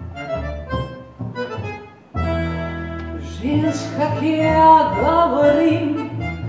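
Accordion playing sustained chords. It drops away briefly just before two seconds in and comes back in suddenly. From about halfway a singing voice with vibrato comes in over it.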